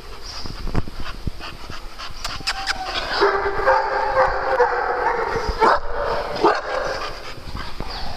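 A group of dogs at play barking and yipping over one another, thickest from about three seconds in until near the end, with short scattered knocks before that.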